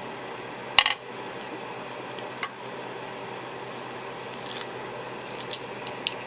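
Scattered small clicks and taps from handling a handmade paper card and peeling foam adhesive backing, the sharpest about a second in, over a steady hiss.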